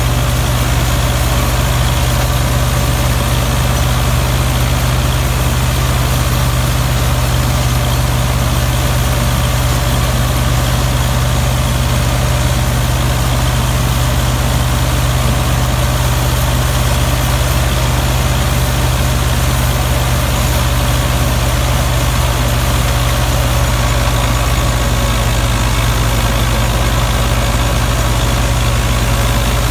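Belarus 510 tractor's four-cylinder diesel engine running steadily under load, driving a PTO-powered wheat straw chopper. The chopper's rotor and blower add a constant rushing noise as chopped straw is blown into the trailer. The sound stays even throughout.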